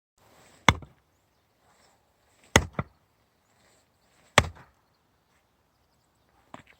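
Axe splitting firewood: three sharp chops about two seconds apart, the second followed at once by a lighter knock.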